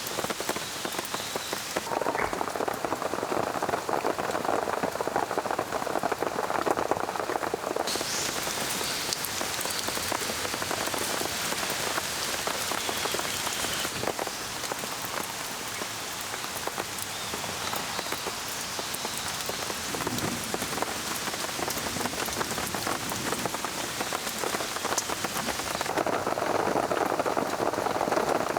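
Steady rain falling. Its tone shifts abruptly a few times, now brighter and hissier, now fuller in the middle range.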